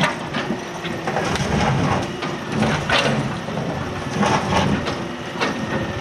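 A heavy machine's engine running, with many sharp cracks and crunches through it throughout.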